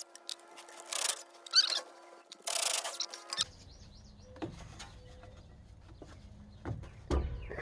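Hand tools and metal parts clinking and scraping while the front drive shaft of a 2000 Silverado is unbolted. A few short rasping bursts come in the first three seconds, then scattered knocks.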